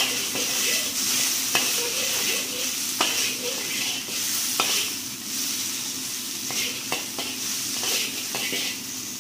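Squid sizzling as it is stir-fried in a hot wok, with a spatula knocking and scraping against the pan every second or two.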